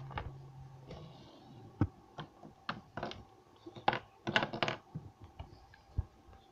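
Light clicks and taps at irregular intervals, with a quick cluster of them a little past the middle: small plastic toys being handled and knocked together.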